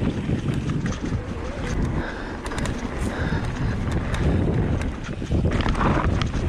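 Wind buffeting the microphone over the rumble of an e-mountain bike's knobby tyres rolling fast down a dirt singletrack, with frequent short rattles and clicks from the bike and loose gravel.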